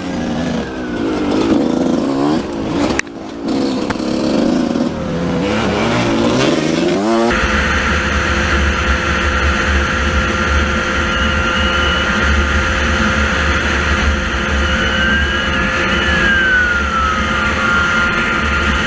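Small dirt bike engine revving up and down repeatedly as it rides. About seven seconds in the sound cuts to a motorbike running at a steady, even speed.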